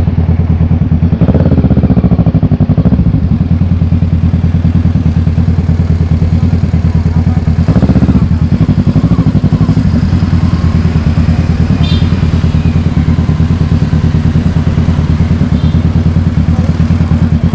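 Motorcycle engine running steadily at low revs, with a fast, even throb, swelling briefly about a second in and again around eight seconds.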